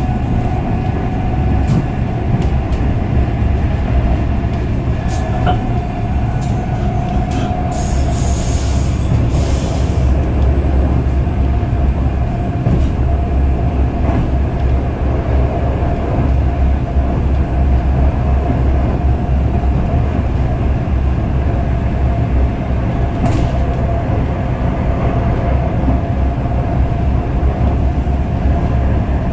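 Steady rumble of a moving passenger train heard from inside the carriage, with a steady hum over it and scattered clicks. A short hiss comes about eight seconds in.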